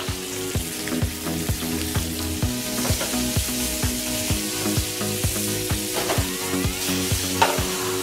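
Chicken pieces, potatoes and bell peppers sizzling in a hot frying pan over a gas flame while being turned with tongs. Background music with a steady beat plays underneath.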